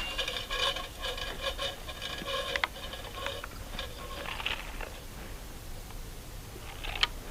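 A homemade PVC toy gun being handled after a shot, with a couple of sharp clicks, the sharpest near the end. Under them runs a high, pulsing chirr for the first few seconds.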